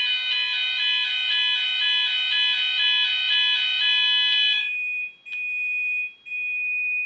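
Gent Vigilon fire alarm sounding during a system test: a loud alarm tone that switches rapidly between pitches, over a steady high-pitched beep. About two-thirds of the way through the switching tone stops, and the steady beep carries on with a couple of brief breaks.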